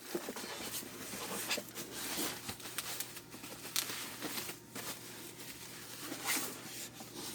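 Packaging being handled while the diesel heater is unpacked: irregular rustling, scraping and light knocks.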